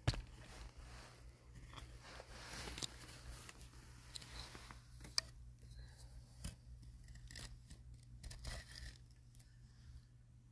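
Faint, irregular crunching and scraping of fresh snow: scattered soft crunches and rustles.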